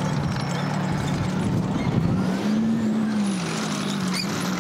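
T-72B3 tank's V-12 diesel engine running hard as the tank drives over rough ground. Its pitch rises and eases back down about halfway through.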